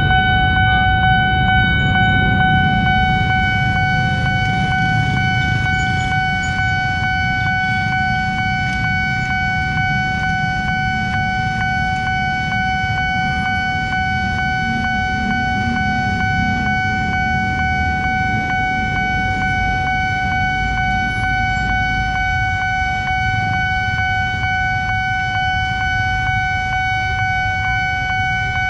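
Railway level-crossing warning alarm sounding one steady, unbroken high tone while the barrier is down, over the low rumble of idling motorcycles and road traffic.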